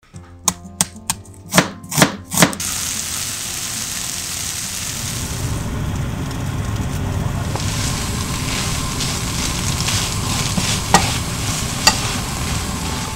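A kitchen knife chopping an onion on a cutting board, about eight quick chops in the first two and a half seconds. Then a steady sizzle of julienned potatoes and onions stir-frying in oil in a frying pan, with a couple of sharp clicks near the end.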